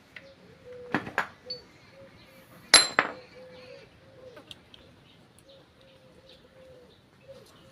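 Metal tools and clutch parts clinking as the motorcycle clutch is taken apart: two clinks about a second in, then a louder ringing metallic clink near three seconds, followed by a few faint taps.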